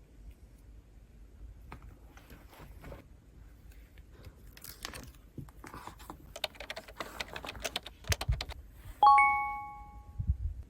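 Quick small clicks and rustles of handling that grow busier, a couple of low thumps, then a bright bell-like chime about nine seconds in that rings and fades: a foley sound effect.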